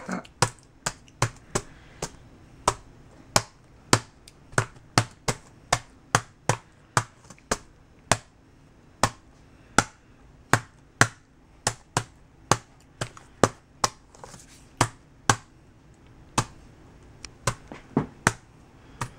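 A capuchin monkey pressing keys on a MacBook Pro laptop keyboard: irregular sharp key clicks, about two or three a second, with a short pause near the end.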